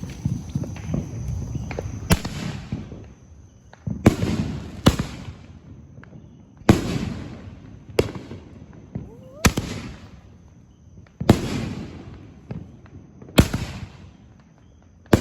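Fireworks going off: a sharp bang every one to two seconds, each trailing off in a fading crackle, after a couple of seconds of rumbling with small pops.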